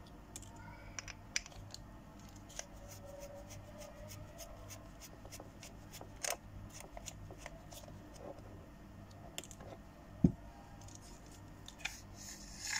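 Small screwdriver turning screws out of the end plate of a brushless motor controller, a run of small metallic clicks and ticks. There is one sharper knock about ten seconds in, and a short scrape near the end as the end cap comes off the aluminium case.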